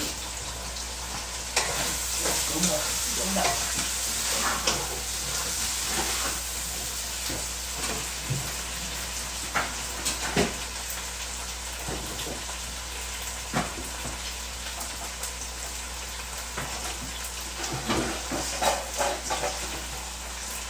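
Steady sizzling hiss of food frying in a pan on the stove, with scattered soft clicks and rustles as glass noodles and vegetables are tossed by hand in a large bowl.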